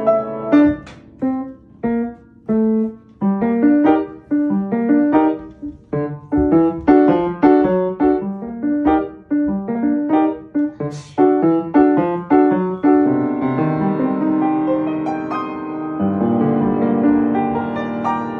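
Solo piano played by a child: short, detached notes with gaps between them at first, then a quicker run of notes, and from about two-thirds of the way through, notes held and ringing together.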